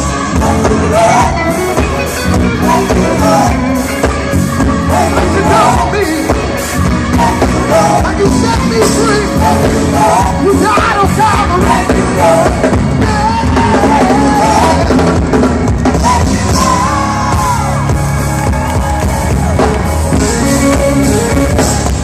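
Gospel choir singing with a full band, loud and continuous.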